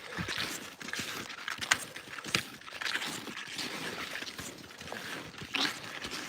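Skis and a dog moving through deep snow: irregular crunching and swishing steps over a steady hiss.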